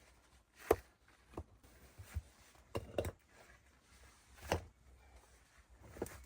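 A series of irregular short, sharp knocks and taps, about seven in six seconds, the loudest one near the start and another a little past the middle.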